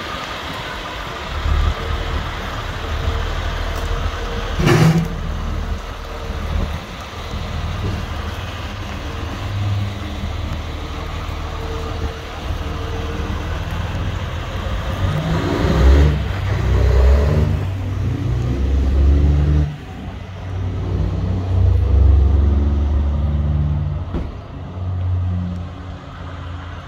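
A motor vehicle's engine running, revving up around the middle and again near the end. There is a single sharp knock about five seconds in.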